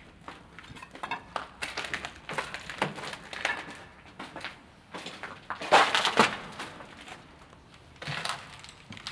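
Footsteps crunching over gritty debris and rubble on a littered factory floor, in irregular steps with the loudest crunch about six seconds in.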